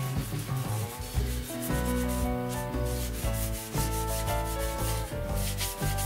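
Cloth rag rubbing finish onto a wooden piece in quick back-and-forth wiping strokes, heaviest near the end.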